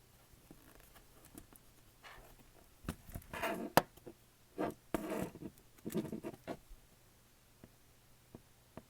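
Scraping and prying at a tablet's glued-down logic board, in four short bursts with a sharp click in the middle.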